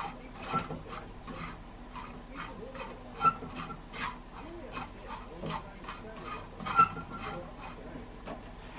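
A wooden utensil stirring dried small sardines in a pan for gomame: irregular scraping strokes, about two a second, with a couple of sharper knocks against the pan.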